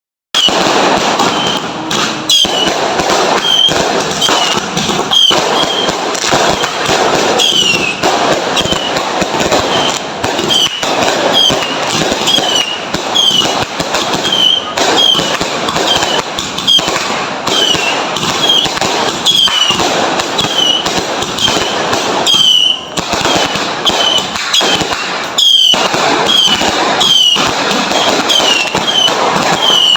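Continuous barrage of fireworks and firecrackers crackling and popping, dense and loud, with short high whistles falling in pitch about once a second.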